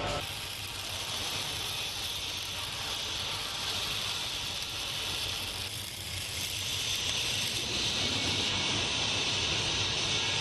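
Wire-feed (MIG) welding arcs on a steel frame: a steady hiss, louder in the last few seconds.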